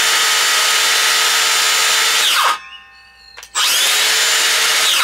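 Makita DHS680Z cordless brushless circular saw running free with no load, a loud steady whine. It winds down and stops about two and a half seconds in, a click follows, and about a second later it is started again, rising as it spins up, and runs until it stops near the end.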